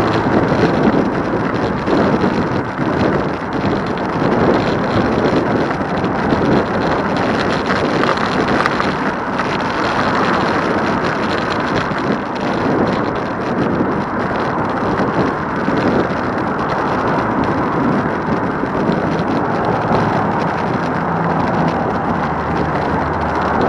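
Steady rush of wind on the microphone mixed with passing road traffic, heard from a moving e-bike.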